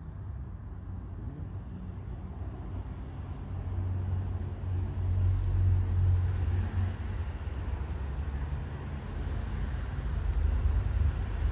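Low road-traffic rumble that swells twice, from about four seconds in and again near the end, as vehicles pass.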